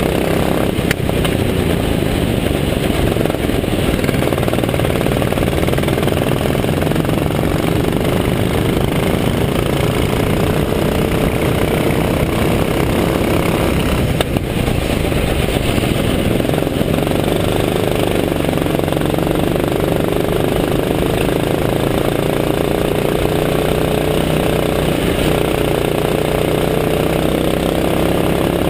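Go-kart engine running hard on track, its pitch rising and falling slowly as the kart accelerates and lifts for corners, over a steady rush of wind on the onboard microphone.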